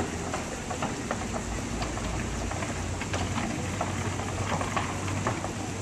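Many irregular footsteps of several performers walking on the roof of a large hollow box, a scatter of small knocks and taps over a steady low city hum.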